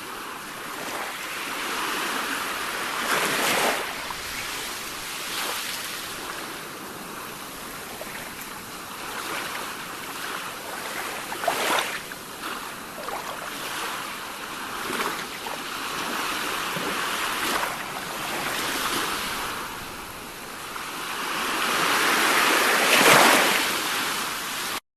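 Sea waves washing onto a shore: a steady rush of surf that swells and eases as each wave comes in, the biggest near the end, then the sound cuts off suddenly.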